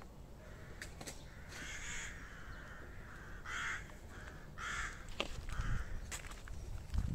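A bird calling repeatedly, about five short harsh calls, with a few sharp clicks in between.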